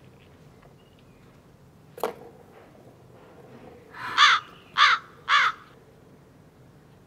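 A cat meowing three times in quick succession, each call short with a pitch that rises and falls, after a single sharp click about two seconds in.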